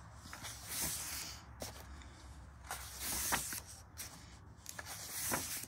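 Pages of a paperback colouring book being turned, three papery swishes about two seconds apart, with small taps and rustles of the book being handled between them.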